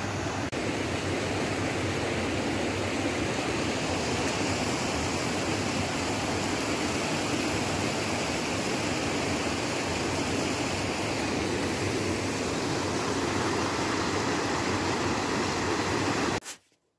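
River water rushing, a loud, even rush that cuts off abruptly near the end.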